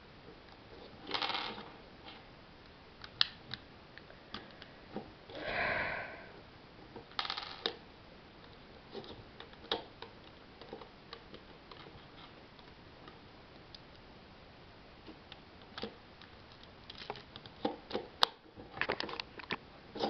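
Lego plastic bricks clicking and rattling as hands slide and push the parts of a Lego puzzle box. Scattered single clicks with a few short scraping bursts, and a quicker run of clicks near the end.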